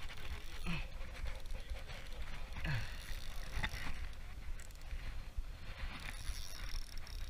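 Shimano Nasci 1000 spinning reel being cranked, its gears whirring as line is wound in against a fish on the bent rod, over a steady low rumble of wind on the microphone.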